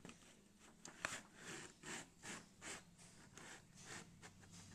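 Cardboard doll box with a clear plastic window being handled and opened: a run of short, faint scraping and rustling sounds, with a sharp click about a second in.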